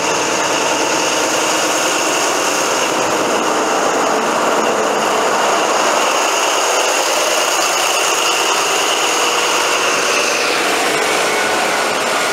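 Class 43 HST diesel power car 43043 running past under power, a loud engine note with high steady whistle tones on top. About ten seconds in the whistle fades as the power car goes by, leaving the rolling noise of the coaches.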